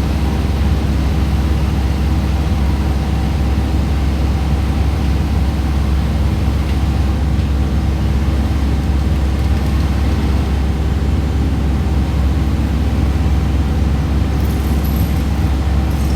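Komatsu D68ESS bulldozer's diesel engine running steadily: a loud, deep drone that holds a constant pitch and level.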